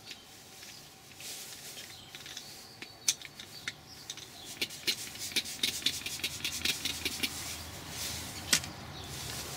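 Leather cleaner squirted from a pump bottle onto a leather car seat, then quick scratchy strokes, several a second, as it is worked over the leather.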